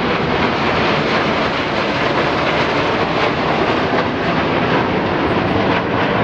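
Military aircraft flying overhead, a loud, steady engine noise without much rise or fall.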